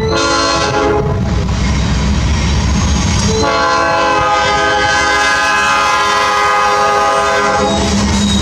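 Norfolk Southern diesel freight locomotive sounding its multi-tone air horn: a short blast at the start, then a long blast from about three and a half seconds in to near the end, over the low rumble of the passing locomotives.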